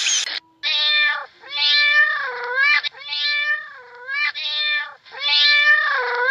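An animal calling repeatedly: about five drawn-out, meow-like pitched calls, each around a second long, bending up and down in pitch.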